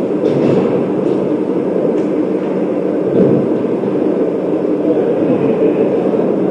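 Steady low din of an indoor ice rink, with indistinct voices of hockey players on the ice.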